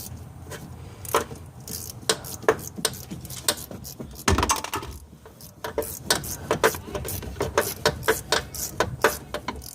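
Metal hand tools clinking and knocking while a wrench works on the steering box bolts: scattered clicks, one heavier clunk about halfway, then an even run of clicks a few per second near the end.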